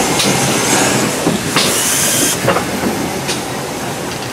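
GWR Collett 0-6-0 goods steam locomotive 3205 rolling slowly past at close range, with a steady noise and a few knocks from its wheels and motion. About a second and a half in there is a strong hiss of steam lasting just under a second.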